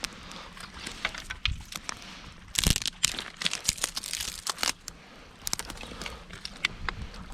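Dry twigs crackling and snapping in a small, newly lit campfire, as irregular sharp clicks with a louder crunch about two and a half seconds in.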